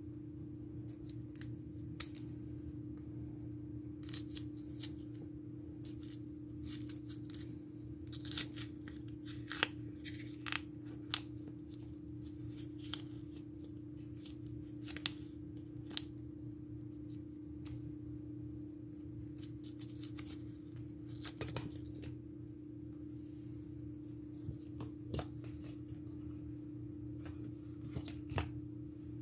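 Small knife cutting into and prying the thick skin off a cassava root, making irregular short, crisp scraping and cutting sounds in clusters, over a steady low hum.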